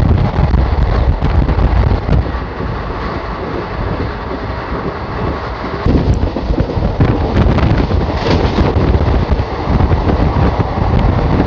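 Indian Railways express train running along the track: a steady low noise of the moving coaches with a few sharp clicks, and wind buffeting the microphone.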